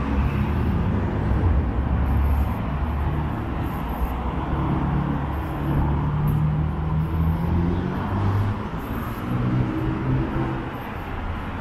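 City road traffic: car engines running and tyre noise as vehicles move through an intersection, with one engine's hum standing out for a few seconds in the middle.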